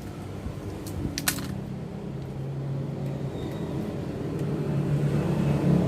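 A motor vehicle engine running with a steady low hum that slowly grows louder; two light clicks about a second in.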